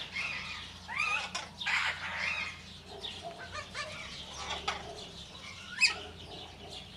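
Aviary birds calling: a busy run of short chirps and rising and falling notes, with one sharp click-like sound, the loudest moment, near the end.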